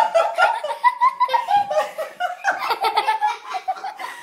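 Laughter in quick, repeated pulses that keep going.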